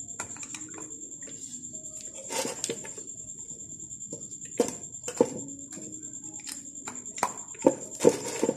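Flat-head screwdriver clicking and scraping against the plastic head of a water purifier's booster pump, in scattered irregular knocks, as the head is worked loose.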